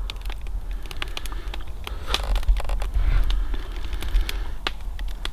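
Wood campfire crackling, with irregular sharp pops and ticks, over a steady low rumble.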